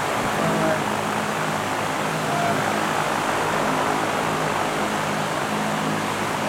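Large drum fan running steadily: an even rush of air with a low motor hum.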